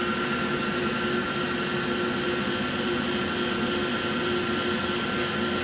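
Steady mechanical hum: an even hiss with a constant low tone and a fainter higher one, from a motor or fan running without change.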